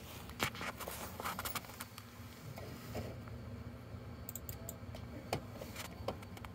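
Computer mouse clicking, with a quick cluster of sharp clicks about four seconds in, among scattered light knocks over a steady low room hum.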